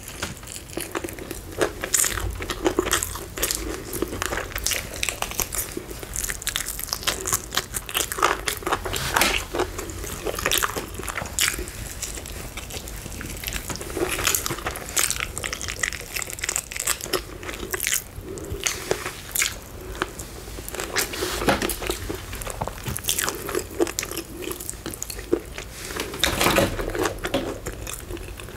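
Close-miked biting and chewing of KFC fried chicken, with many short, sharp crunches and crackles of the crispy breading.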